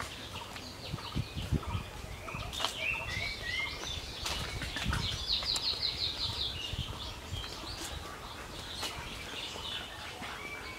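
Outdoor birds chirping, with short calls and a fast trill about halfway through, over a few low thumps.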